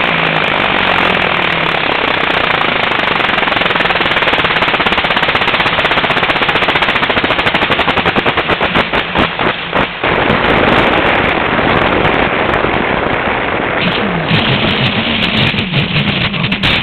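Wind and propeller noise heard from a camera riding on a radio-controlled Super Cub model plane, a loud steady rush full of rapid rattling clicks as the plane comes in to land. The rattling grows denser about halfway through, and a lower humming tone enters near the end.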